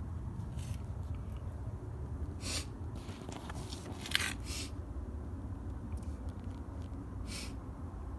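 A steady low rumble with about six short clicks and rustles scattered through it. The loudest click comes a little past the middle.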